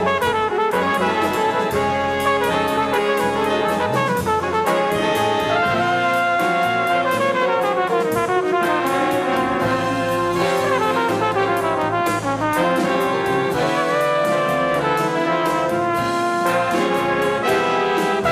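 Jazz big band playing, with trumpets and trombones carrying full brass chords over saxophones and drums, cymbal strokes running throughout. The piece moves in alternating bars of 5/4 and 3/4, as the announcer reckons it.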